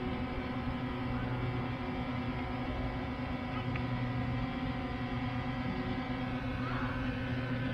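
Yuneec Mantis Q quadcopter's propellers humming steadily as it hovers low over grass, a constant hum of several fixed pitches that holds level throughout.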